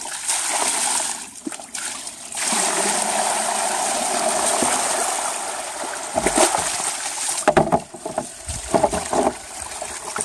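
Water gushing out of a blue hose into a plastic basin of water, splashing steadily: groundwater lifted by a 12-volt, 100-watt submersible pump. The flow breaks briefly about a second and a half in, and turns uneven with sharper splashes from about six seconds on as the hose moves in the basin.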